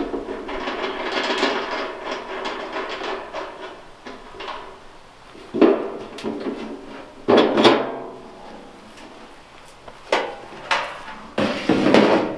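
Galvanized steel poultry kill cones being handled: a few seconds of metallic rattling and scraping, then several separate clanks as loose cones are picked up and knocked together for nesting.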